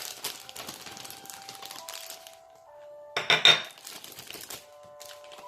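Plastic bag crinkling as macadamia nuts are put into it, then a short, loud clatter of hard objects about three seconds in, over background music.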